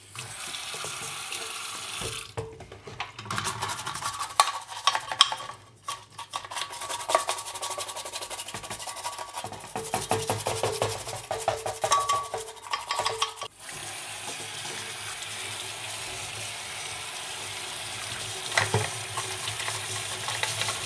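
Atari 1050 floppy drive's circuit board being washed by hand in a stainless steel kitchen sink with warm soapy water: wet rubbing, splashing and small clicks of the board against the sink, stopping briefly a few times. About two-thirds in it gives way to a steadier hiss of the tap running onto the board to rinse it.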